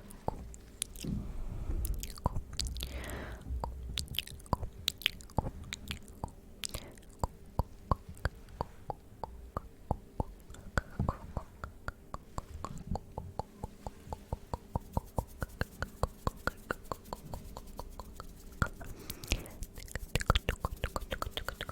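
Close-miked ASMR mouth sounds: wet tongue and lip clicks and smacks. They are slow and scattered at first, then come in a fast run of several clicks a second.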